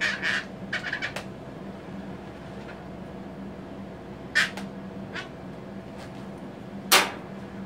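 Short squeaks of an inflated latex balloon as a marker is drawn across it and fingers rub it, a few scattered times, the loudest near the end.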